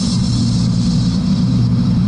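Scania P-380 dump truck's diesel engine running with a steady low drone under tyre and road noise, heard inside the cab while cruising on the highway.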